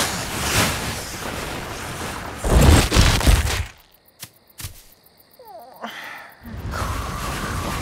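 Cartoon sound effects: a long rushing noise that swells into a heavy low rumble about three seconds in, then a few light clicks and a short squeak, and another rushing noise near the end.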